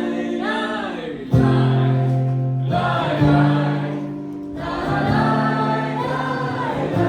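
Live indie-pop-folk song: several voices sing long held notes in harmony over the band.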